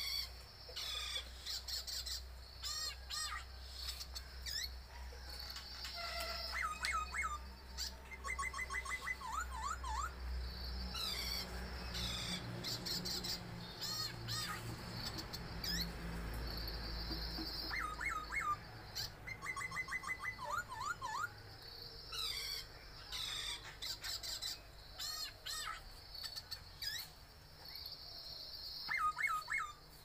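A man imitating bird calls: quick, repeated chirping trills and warbles in bursts of a second or two, with short pauses between them.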